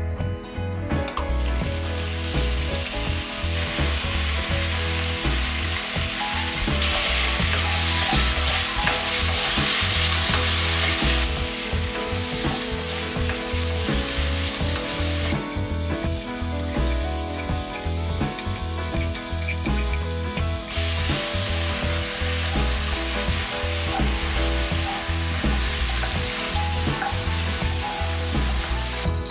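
Chicken pieces sizzling in hot oil in a wok, stirred with a wooden spoon. The sizzle grows louder about seven seconds in and drops back about four seconds later.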